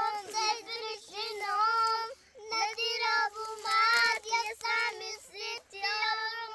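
A child singing unaccompanied in a high voice, holding long notes in phrases with brief pauses between them.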